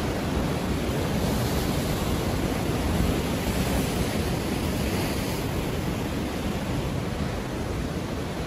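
Ocean surf washing in a steady rush, swelling a little brighter from about one to five seconds in as a wave breaks.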